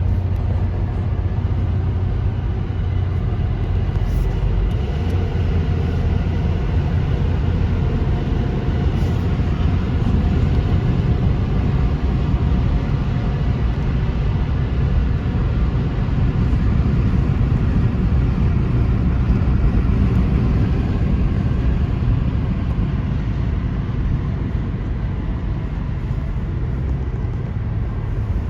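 A car driving along steadily: a continuous rumble of road and engine noise.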